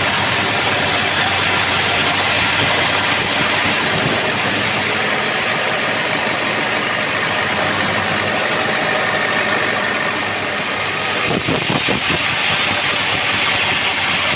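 Homemade band sawmill running with a steady, loud mechanical noise, dipping briefly and changing about eleven seconds in.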